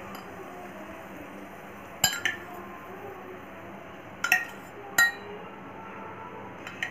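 A steel spoon clinking against metal a few times as oil is spooned onto an iron tawa: short sharp clinks about two seconds in, a pair about four to five seconds in, and one more near the end.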